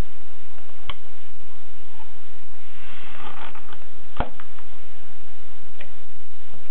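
Manual typewriter mechanism making a few isolated sharp clicks, the loudest about four seconds in, with a brief rustle just before it.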